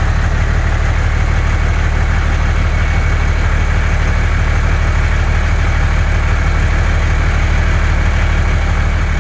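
Truck engine idling steadily: a heavy low rumble with a fast, even chugging pulse.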